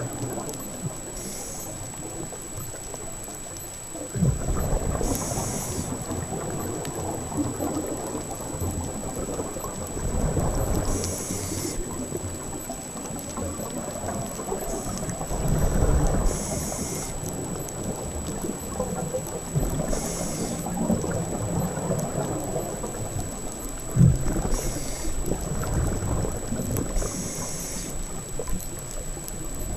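Underwater sound of a scuba diver breathing through a regulator: a short hiss on each inhale, then a low rumble of exhaled bubbles, about one breath every five or six seconds, over a steady wash of water noise. A thin, steady high whine runs beneath.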